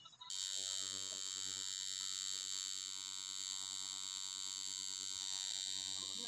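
Electric tattoo machine buzzing steadily as it needles ink into skin, after a brief dropout at the very start.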